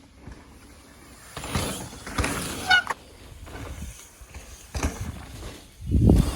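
Mountain bike riding on a dirt trail: swells of rushing tyre and wind noise, with a short high squeak partway through and a heavy low rush about six seconds in, the loudest moment.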